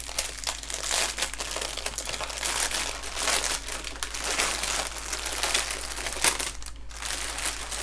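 Plastic packaging crinkling and rustling as a bundle of small bags of diamond-painting drills is handled in its outer plastic wrap. The crinkling is continuous, with a short pause near the end.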